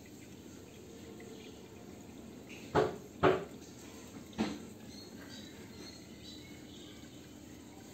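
Three short, sharp knocks: two close together, then a third about a second later, over a faint steady outdoor background hiss.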